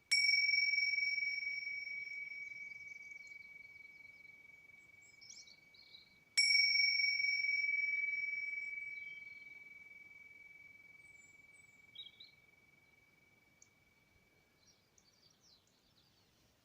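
A meditation bell struck twice, about six seconds apart, marking the close of the practice. Each strike rings a single clear high tone that fades slowly over several seconds.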